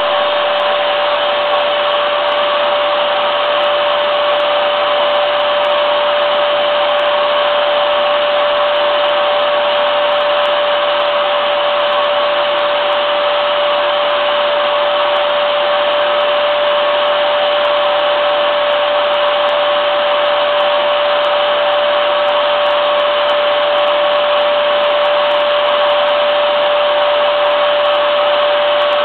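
Vacuum cleaner motor running steadily, a continuous loud rushing hiss with a steady whine on top.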